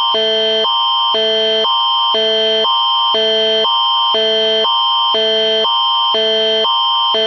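Canadian Alert Ready attention signal: two chords alternate about twice a second over a steady high tone, sounding the start of an emergency alert broadcast.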